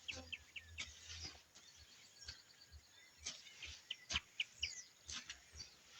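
Faint birds chirping and calling, with a few scattered sharp knocks.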